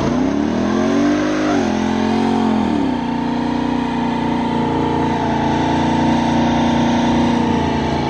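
Inline-four superbike with an aftermarket full-system exhaust, accelerating hard. The revs climb and step down at two gear changes in the first three seconds, then hold a steady high-rev note.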